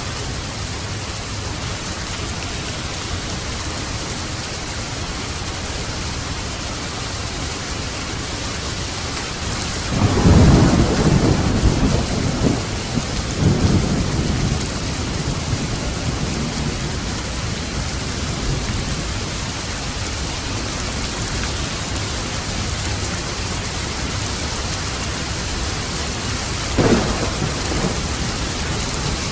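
Steady rain, with a rolling rumble of thunder starting about ten seconds in and lasting some five seconds, then a brief sharp clap of thunder near the end.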